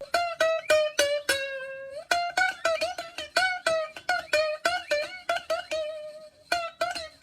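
Music: a plucked string instrument picking a quick melody of short notes, with one longer held note about two seconds in.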